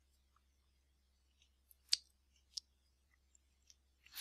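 Two faint computer mouse clicks, about two seconds in and again a moment later, over a quiet room hum.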